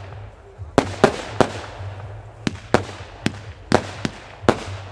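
A 192-shot firework compound cake firing in quick succession: about nine sharp bangs at uneven intervals of a third of a second to a second, each with a short echo, as its shots launch and burst.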